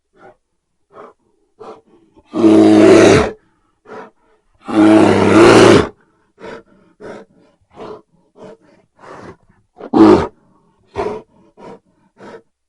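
Grizzly bear roaring: two long, loud roars a couple of seconds in, a shorter loud one near the end, and a string of short, quieter calls between them.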